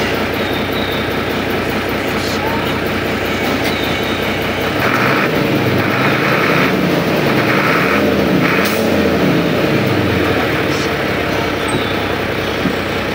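Diesel truck engine running, its revs rising and falling several times in the middle, with a few short hissing bursts alongside, as the clutch is tried out after a clutch master cylinder rebuild.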